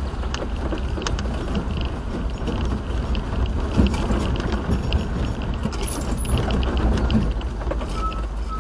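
Vehicle cabin noise while driving: a steady low road rumble with frequent small rattles and clicks.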